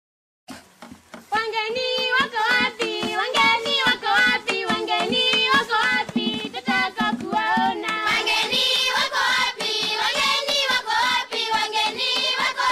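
Music with a singing voice over a steady beat, starting softly about half a second in.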